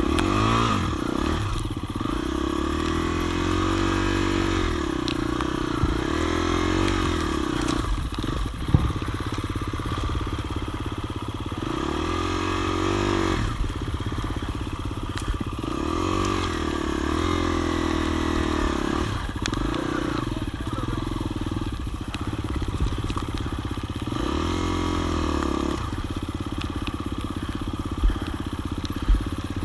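Motorcycle engine pulling hard in second gear off-road, its pitch rising and falling over and over as the throttle is opened and the clutch slipped. A few knocks and clatters are heard, including a couple near the end.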